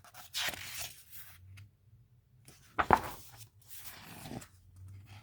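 Paper rustling as a picture book's page is turned, with a sharp slap about three seconds in as the page is laid down.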